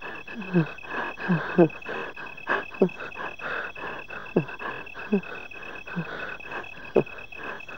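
Crickets chirring steadily, with short falling calls repeating every half second to a second over them.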